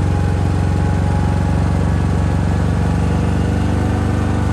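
DuroMax XP4500iH dual-fuel inverter generator running at a steady speed.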